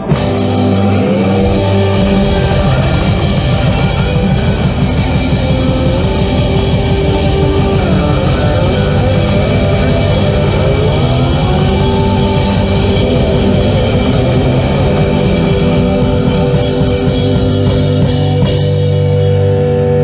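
Live rock band playing: a drum kit driving under electric guitars and keyboard. Near the end the drums drop out, leaving held guitar notes ringing.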